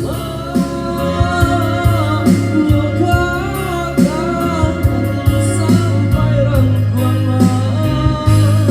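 Band music with singing: a wavering vocal melody over a heavy bass line and regular drum hits.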